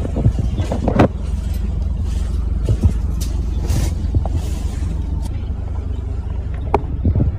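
2023 Ford Edge L SUV driving slowly over a rough dirt track, heard from close behind: a steady low engine and tyre rumble, with a few short knocks from the wheels and suspension on the ruts.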